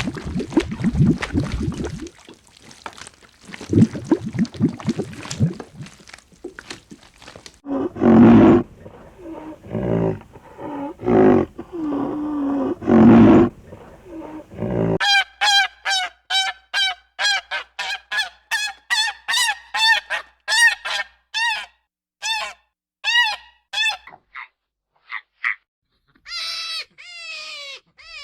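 A run of animal calls. First comes rough, noisy vocalising, then a few loud, deeper calls. After that come many repeated honking calls, about two a second, and a few falling calls near the end.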